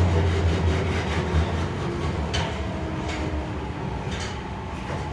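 Nagoya Subway N1000 series train running, heard inside the car: low rumble of wheels on rail, with the thin whine of its Mitsubishi IGBT VVVF inverter motors and a few short clicks. The running noise slowly fades as the train slows on its approach to a station.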